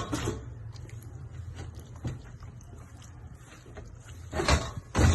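Kitchen handling noises while marinating chicken: a few short knocks and rustles, the loudest pair near the end, over a steady low hum.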